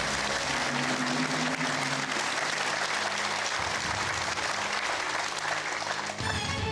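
Studio audience applauding a correct answer on a quiz show, dying down near the end.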